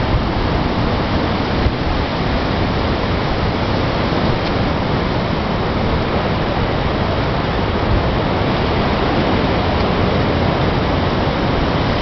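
Strong wind blowing across the microphone: a loud, steady rush of noise.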